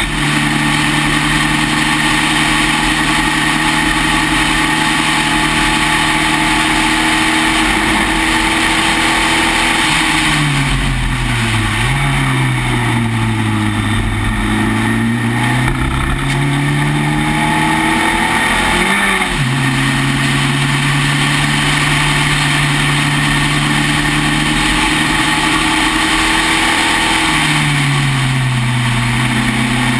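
Spec Racer Ford's four-cylinder engine heard from the cockpit while racing: held at steady high revs, then falling in pitch as the car slows about a third of the way in, with quick dips as it is downshifted. The revs climb back, jump up and hold steady, then fall again near the end.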